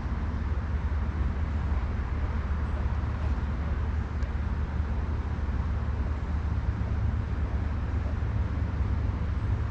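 Steady outdoor background noise: an even low rumble with a hiss above it, like distant road traffic, with no distinct events.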